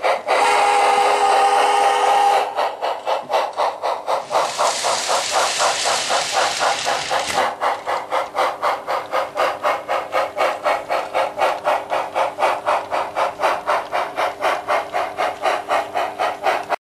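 Sound-equipped HO-scale model of an 0-8-0 steam switcher, its speaker giving steady steam-engine chuffing at about four beats a second. A chime whistle sounds for about two seconds at the start, and a long hiss of steam lasts from about four to seven and a half seconds in. The sound cuts off suddenly near the end.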